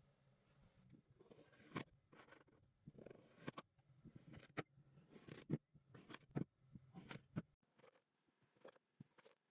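Kinetic sand being sliced and crushed: a string of short, irregular crunches, one or two a second. About three quarters of the way through they give way to lighter, quicker ticks.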